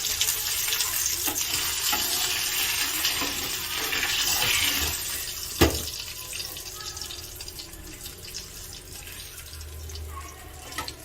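Hot oil sizzling in a pan of shallow-frying fish as the pieces are lifted out, with one sharp metallic clink about five and a half seconds in; the sizzle is quieter in the second half.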